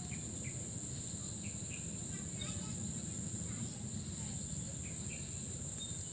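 Insects droning in one steady, unbroken high-pitched tone, with scattered short chirps over a low, steady background hum.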